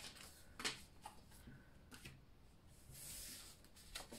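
Faint rustling and sliding of paper prop-money bills being handled on a tabletop, with a few soft taps.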